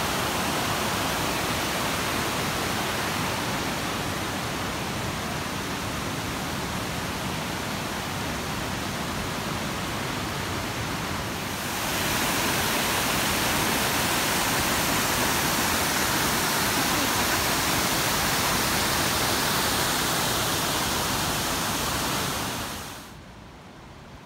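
Steady rush of river water pouring over cascades and small waterfalls. It gets louder about halfway through and drops off sharply near the end.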